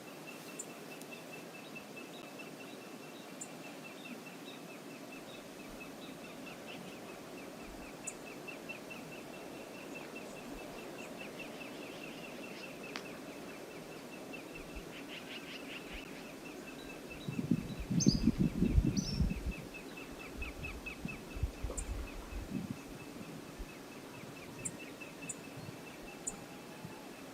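Outdoor wildlife-camera ambience with a steady, very fast high ticking trill throughout and a few faint high chirps. About two-thirds through comes a loud, low rumbling burst lasting about two seconds, followed by a few weaker low bursts.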